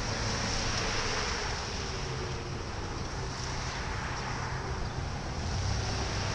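Wind buffeting the microphone in an even, rumbling rush. Under it a faint tone, most likely from a distant outdoor warning siren, slowly falls in pitch.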